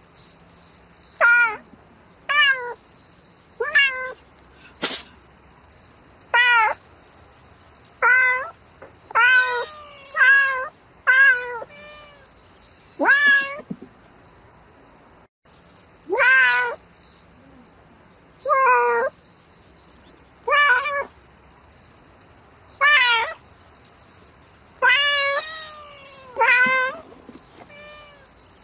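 Domestic cat meowing over and over in short, rising-then-falling calls, one every second or two with a short pause about halfway through. A sharp click about five seconds in.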